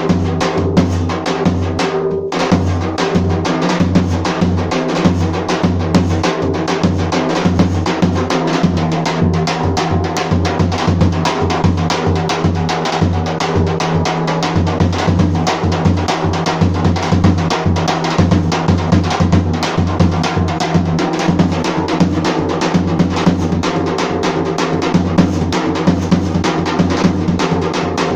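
Serbian tapan, a large double-headed bass drum, played in a fast, driving dance rhythm with sticks: deep booming strokes mixed with rapid lighter strokes, several per second without a break.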